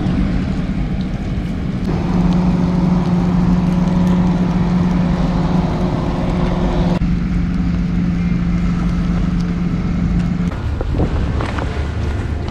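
Steady motor drone with a strong even hum, fuller for a few seconds in the middle, giving way to a lower hum near the end.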